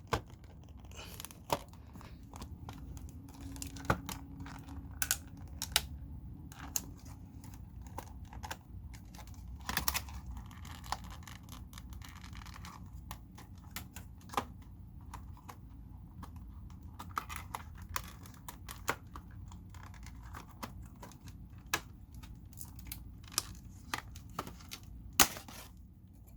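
Hard plastic clamshell packaging being worked open by hand: scattered crackles, clicks and snaps of stiff plastic, with one sharp snap near the end.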